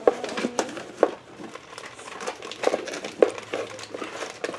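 Snack wrappers and packaging crinkling and rustling in irregular crackles as hands rummage in a snack box.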